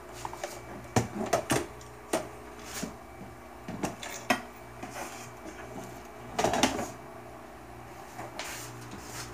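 Irregular clicks, clinks and light knocks of tools and parts being handled on the TV's bare metal chassis, with a brief cluster about a second in and a longer scraping rustle a little past six seconds. A steady low hum runs underneath.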